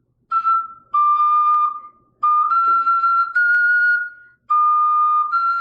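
Ocarina playing a short run of clear held notes that step up and back down, a high re, mi and fa phrase repeated as a practice drill, each note breaking off before the next.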